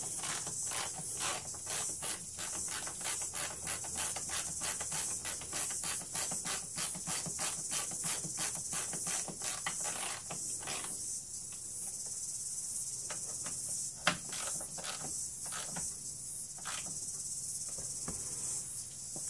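Insects chirring steadily in a high, even drone, with a quick regular run of faint ticks through the first half and a single sharp click about 14 seconds in.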